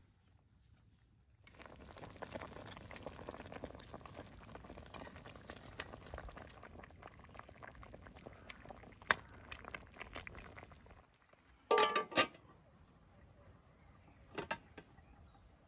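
A large aluminium pot of lamb and vegetable stew, cooking in its own juices with no water added, bubbling and simmering with a dense crackle, with a sharp clink about nine seconds in. About twelve seconds in come two loud ringing metallic clanks, and a smaller knock follows shortly after, as the pot is gripped and lifted off its charcoal stove.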